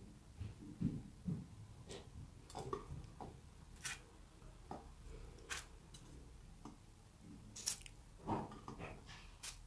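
Faint, scattered clicks and taps of cookies being picked up off a parchment-lined baking tray and set down one by one on a plate.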